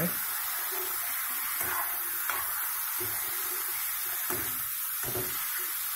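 A spatula scraping and knocking against a metal kadai as chicken pieces are stirred in hot oil, a handful of irregular strokes over a steady frying sizzle.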